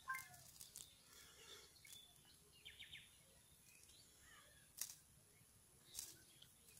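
Quiet open-air background with faint handling sounds of a wet cast net being gathered up: a few isolated sharp clicks and a short quick run of ticks about three seconds in. Faint bird chirps now and then.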